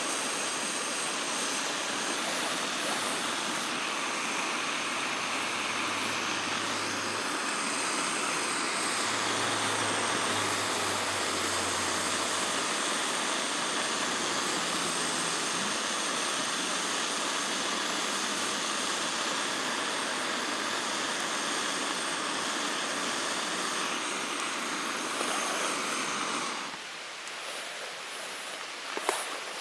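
River water flowing, a steady rushing noise. Near the end it drops away sharply, leaving a quieter background with a few sharp clicks.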